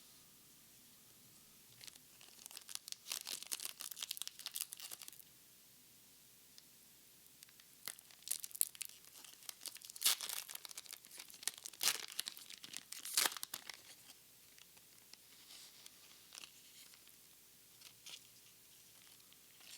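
Foil wrapper of a Pokémon card booster pack being torn open and crinkled. The crackling comes in two spells, from about two to five seconds in and from about eight to fourteen seconds in, with fainter rustles after.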